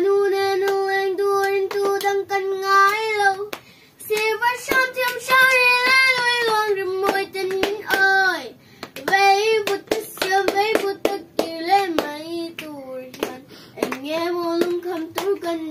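A young girl singing alone without accompaniment, holding long notes in slow phrases with a short pause about three and a half seconds in. Sharp clicks sound here and there throughout.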